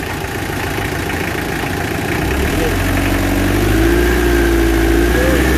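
Mitsubishi L300's diesel engine running at idle, then revved up about two seconds in and held at a higher, steady speed. The mechanic diagnoses the engine with low compression from carbon deposits on the valves.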